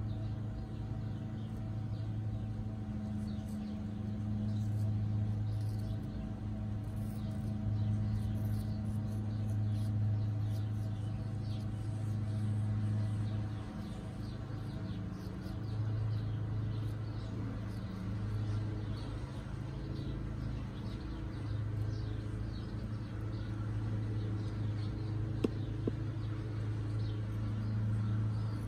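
A steady low machine hum that swells and fades every few seconds, with faint scattered clicks of a parrot's beak picking at food and one sharp click near the end.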